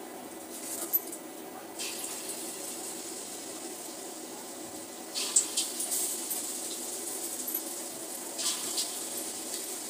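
A steady hiss over a low hum in a kitchen, broken by short clinks of metal utensils about two, five and eight seconds in.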